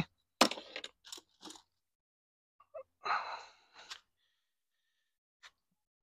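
Light handling noises of a power cord and its cigarette-lighter plug: a few short clicks in the first second and a half, then a brief rustle about three seconds in.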